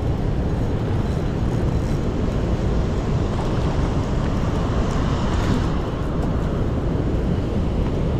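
Steady rushing roar of water pouring over a river dam spillway, mixed with wind buffeting the microphone.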